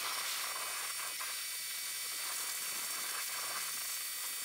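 Greenworks 1800 PSI electric pressure washer spraying a muddy dirt bike: a steady hiss of the water jet with a thin high whine running under it.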